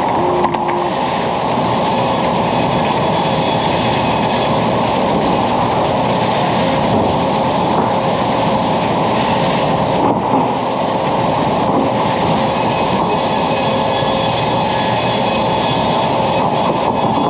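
Sawmill head rig running: a big band saw and its log carriage on the track, a loud steady mechanical din. A faint high whine comes and goes.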